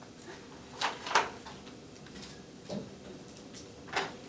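A few short, sharp clicks and knocks, about four in four seconds, the loudest a little over a second in, over a steady room hum.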